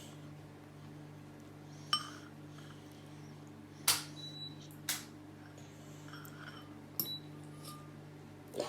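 Scattered light clinks and knocks of a dish during a meal of noodles, five of them a second or two apart, over a steady low hum.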